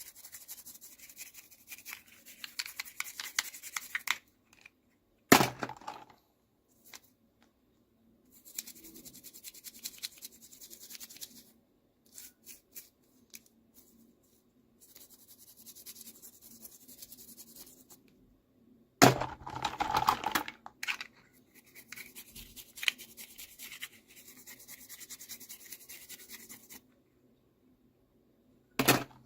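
Hands opening and handling miniature toy packaging: stretches of crinkling, scratching and tearing with short silent gaps, and a louder bump about five seconds in and another around twenty seconds.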